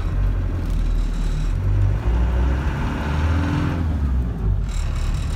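Land Rover Defender 110 driving, with its engine and road noise heard from inside the cab. The noise builds and then eases off about four seconds in.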